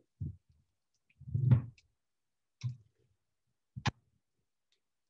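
Kitchen utensils knocking and clicking against cookware while food is plated: four separate knocks, the loudest about a second and a half in, and a sharp click near four seconds.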